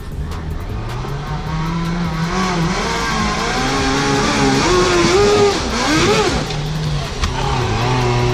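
Off-road vehicle engine revving hard on the throttle, its pitch rising and falling several times. It is loudest in the middle and settles to a steadier run near the end.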